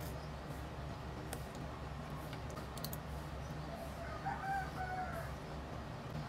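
A rooster crowing in the background, one call of about a second, a little past the middle. A few light clicks of a spoon on a plate and a steady low hum run underneath.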